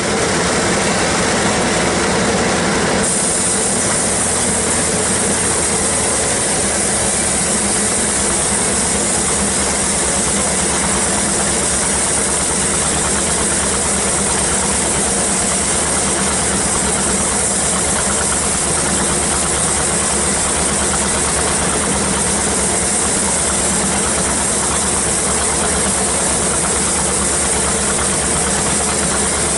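Band sawmill running steadily, with a high hiss that comes in sharply about three seconds in, as a cut gets under way.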